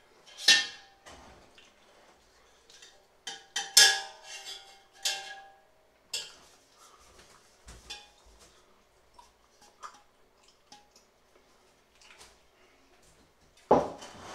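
A metal spoon scraping and knocking around the inside of a large stainless-steel stockpot. Several sharp clinks ring briefly, the loudest about half a second and about four seconds in and another near the end, with softer scraping between.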